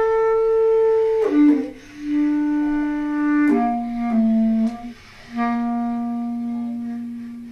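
Bass clarinet playing a slow solo phrase of long held notes that step downward. After a brief break near five seconds, a last low note is held and slowly fades.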